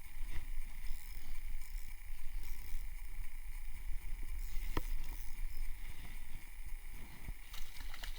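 Wind rumbling and buffeting on the microphone outdoors, with a faint steady high tone underneath and a single sharp click about five seconds in.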